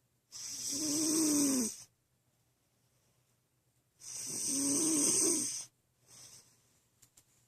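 Snoring: two long, loud snores about four seconds apart, each with a low droning pitch that drops at its end, then a faint short breath near the end.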